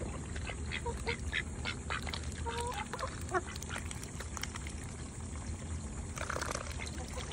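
Domestic duck dabbling in a muddy puddle, its bill making quick wet clicks, with a few soft quacks and a louder quack about six seconds in.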